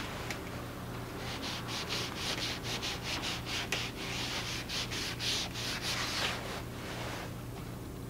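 Crumpled tissue rubbed in quick back-and-forth strokes over textured watercolour paper, a dry scrubbing hiss about three strokes a second, stopping near the end.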